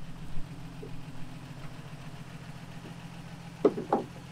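A steady low hum of an idling engine, with two short knocks near the end.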